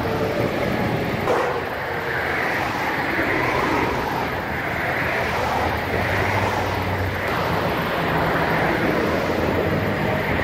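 Steady roar of highway traffic going past, a constant rushing noise with a low engine hum underneath.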